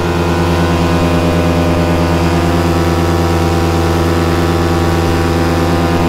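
Paramotor engine and propeller running at full power in a hands-off climb, a loud steady drone that holds one pitch throughout.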